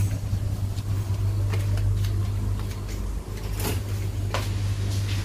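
Steady low hum of a small shop's indoor background, with a few scattered light clicks and knocks from handling and brushing past packaged goods on the shelves.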